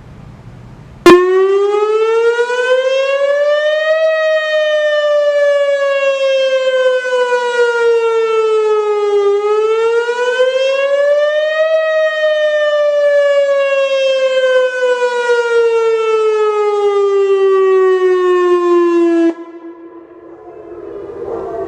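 Whelen WPS-2909 electronic outdoor warning siren sounding its weekly test wail. It starts abruptly, rises and falls in pitch twice in a slow wail, then cuts off sharply.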